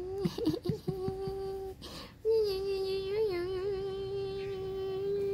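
A voice holding long steady notes at one pitch: a few quick wavering notes, a held note of about a second, a short breathy break, then one long held note with a small wobble about a second later.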